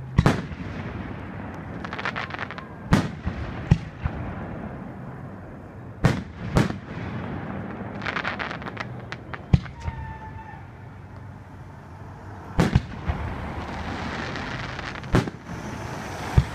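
Aerial fireworks shells bursting close by: a string of sharp bangs every couple of seconds, some followed by quick runs of crackling.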